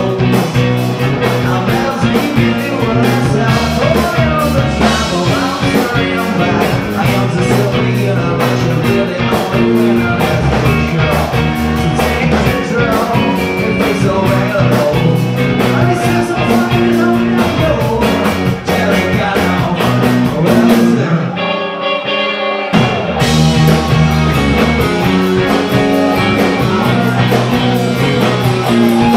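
A live rock band playing: electric guitars, bass guitar and drum kit, with a singer. About 21 seconds in the bass and drums drop out for a moment, leaving a guitar alone, then the full band comes back in.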